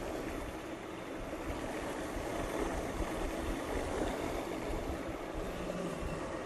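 Food processor motor running steadily, puréeing butternut squash soup thinned with stock.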